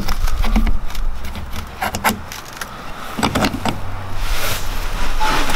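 Metal latch bracket and bolt being handled and fitted against a truck camper's door frame: a string of irregular small clicks, knocks and rattles over a low steady rumble.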